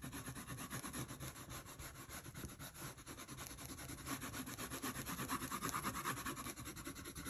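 Orange coloured pencil scratching on drawing paper in quick, short, repeated hatching strokes.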